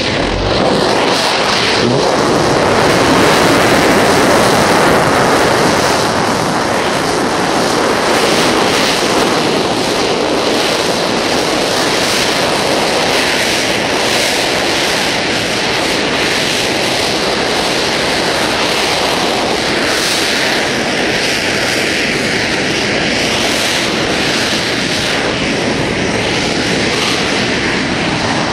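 Copenhagen Suborbitals' TM65 liquid-propellant rocket engine, burning alcohol with liquid oxygen, igniting on a static test stand. It starts suddenly and fires with a loud, steady rushing noise, slightly louder a few seconds in.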